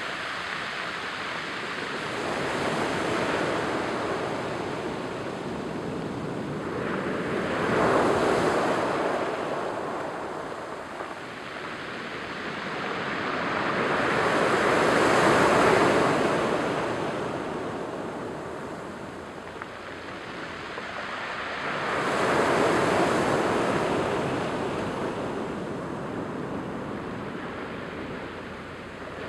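Small surf breaking and washing up a cobble-and-pebble beach on the incoming tide. It rises into a louder rush four times, several seconds apart, over a steady wash of water.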